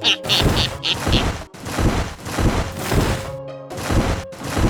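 Background music with a run of repeated percussive hits, like drum beats or knocks.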